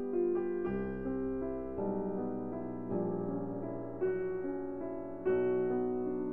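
Background piano music: slow, gentle chords, a new one struck about once a second and left to ring.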